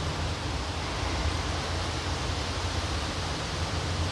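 Steady, even hiss with a low hum underneath, unchanging and with no distinct events: background room noise.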